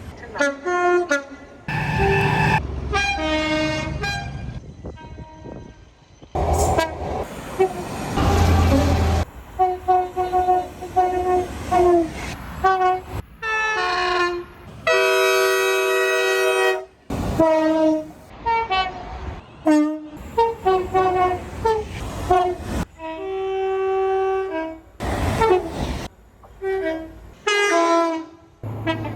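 Locomotive air horns sounding one after another, a run of short and long blasts with abrupt changes from one horn to the next. A low rumble of train noise fills some of the gaps.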